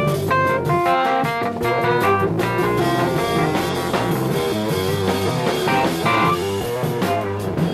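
Jazz-fusion quartet playing live, with electric guitar, keyboards, bass and drums in a dense passage of quick notes.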